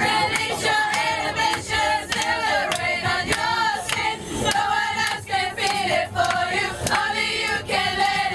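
A group of people singing together loudly, many voices at once, without a break.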